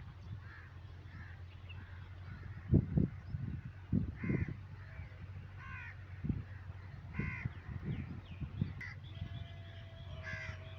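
A bird cawing repeatedly, short harsh calls every second or so, over low rustling and soft thumps; a steady held note comes in near the end.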